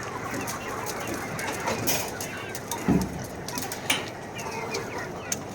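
A flock of chickens clucking together, a steady dense chatter, with a few sharp clicks and one dull thump about three seconds in.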